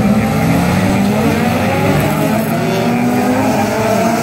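A pack of jokamies-class folkrace cars pulling away from a standing start together, several engines revving hard at once and climbing in pitch as they accelerate.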